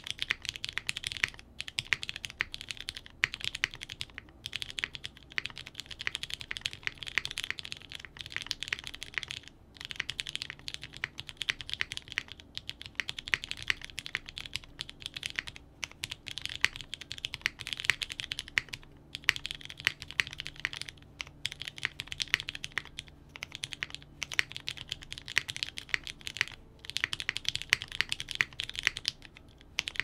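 Steady fast typing on a Lin Whale tenkeyless keyboard with lubed vintage Cherry MX Brown switches in a polycarbonate half plate, under GMK keycaps: a dense, even run of soft keystroke clicks with a few brief pauses. A creamy sound.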